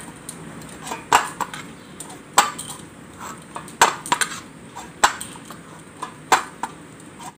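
Maida dough kneaded by hand on a stainless steel plate: a sharp knock against the metal about every second and a quarter as each push presses the dough into the plate.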